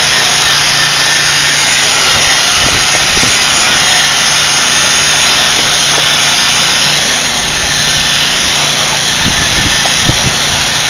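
Electric power-tool motor running steadily, driving a homemade spin screed's stainless-steel tube across wet concrete, with a few light knocks.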